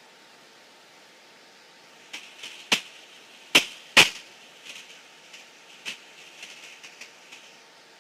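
Irregular sharp clicks and pops over a faint steady hiss on the cockpit intercom audio, with three louder ones a little under a second apart and smaller ones scattered after them.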